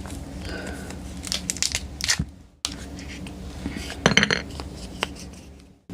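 Crinkling and crackling as a foil-wrapped chocolate surprise egg is opened by hand. The sounds come in two short spells of crackles, each ending in a sudden cut-off.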